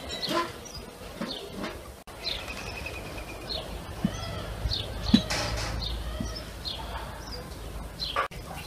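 Small songbirds chirping and twittering, with a short trill about two seconds in. A few light knocks of tableware being set on a table around the middle.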